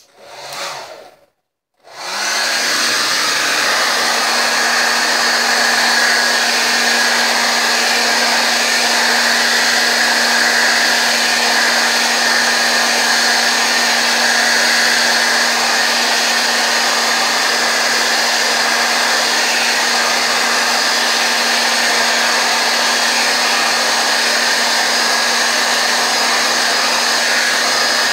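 Handheld hair dryer switched on about two seconds in, then running steadily: a rush of air with a constant low hum, blowing over a damp t-shirt to take out its wrinkles.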